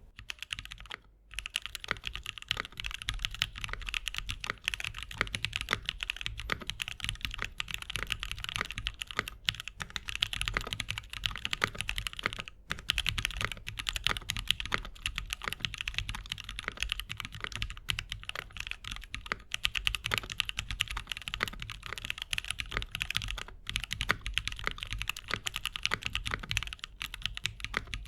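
Continuous fast typing on a custom 65% mechanical keyboard with lubed and filmed C³ Equalz Banana Split linear switches on a polycarbonate plate and GMK keycaps. Rapid keystroke clicks with a few brief pauses.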